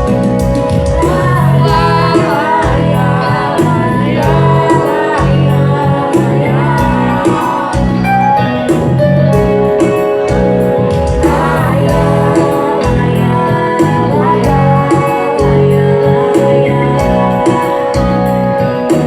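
A song: a woman singing over instrumental accompaniment, with held chords and a steady beat.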